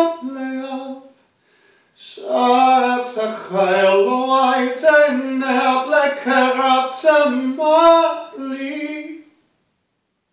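A man singing unaccompanied in a fairly high voice, holding notes and stepping between them. A short phrase breaks off about a second in, a longer phrase follows, and the voice stops about a second before the end.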